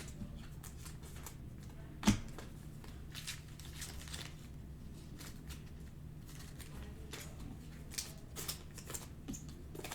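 Faint handling of trading cards and pack wrappers: soft rustles and ticks, with one sharper click about two seconds in, over a steady low hum.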